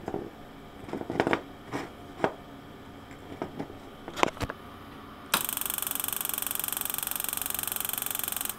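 A few clicks and knocks, then about five seconds in a high-voltage RF spark gap tube starts firing: a rapid, even buzz of repeated sparks that stops suddenly near the end.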